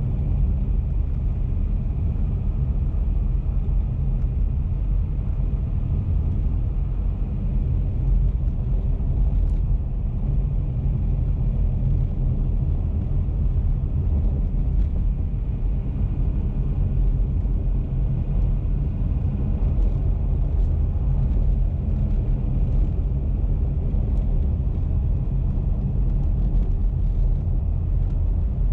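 Car cruising at a steady speed: a constant low rumble of tyres and engine on the road.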